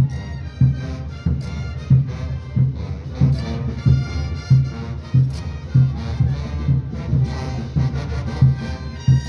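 Live brass band music with a steady bass drum beat, about three beats every two seconds.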